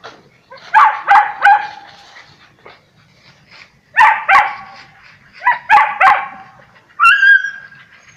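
A pack of dogs barking in quick groups of two or three barks, with pauses between, as they hold a wild cat at bay. Near the end comes a higher, drawn-out cry.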